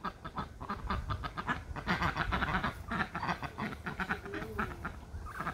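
Three Pekin ducks quacking in quick, overlapping runs of short calls as they crowd round to be fed, loudest about two seconds in.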